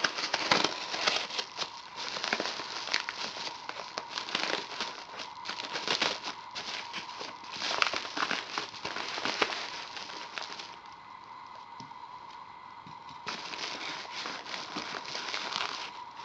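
A padded kraft bubble mailer being handled and opened by gloved hands: crinkling and crackling of the paper and bubble lining, with a lull of a couple of seconds about two-thirds of the way through before it resumes.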